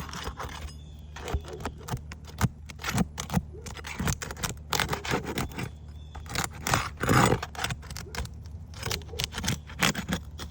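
Roof shingles being pried apart to break their seal: irregular scraping, crackling and clicking as the sealed strip tears loose, with a louder scrape about seven seconds in.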